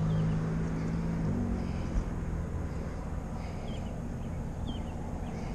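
A car engine idling nearby over outdoor traffic noise. Its steady hum changes and fades slightly a little over a second in.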